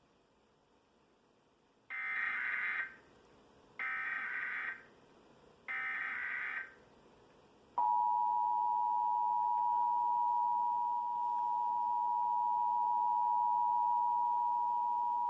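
Emergency Alert System signal: three short bursts of SAME digital header data, about a second each, followed about halfway through by the steady two-tone attention signal.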